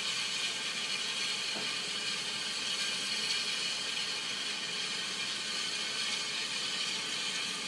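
Steady steam hiss from Santa Fe #3751, a 4-8-4 steam locomotive.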